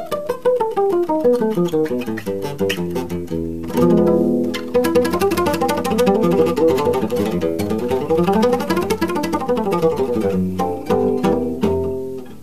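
Solo flamenco guitar on a nylon-string guitar: fast single-note runs falling and rising in pitch over bass notes, growing louder and denser about four seconds in.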